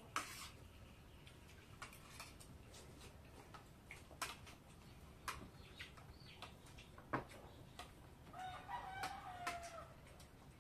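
Spoons and forks clicking now and then against plates during a meal, with a rooster crowing once, about a second long, near the end.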